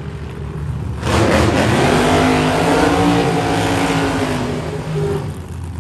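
Supercharged gasser drag car's engine idling, then revving hard through a burnout about a second in, with the rear tires spinning and smoking. After about four seconds it drops back to a steady idle.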